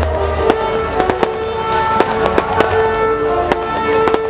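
Fireworks display: many irregular sharp bangs and crackles from exploding shells, over music with long held notes.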